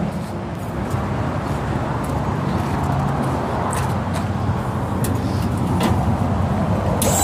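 A vehicle engine idling steadily with a low rumble, with a few faint light clicks. Right at the end a high steady whine starts up.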